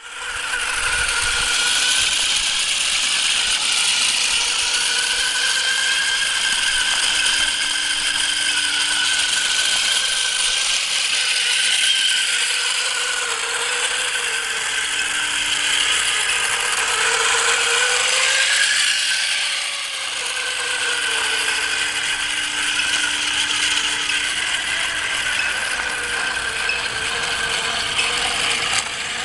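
Self-balancing robot's sensored brushless motors running as it drives and balances on asphalt, a steady rattly mechanical whir with faint tones that drift up and down as the motors speed up and slow down.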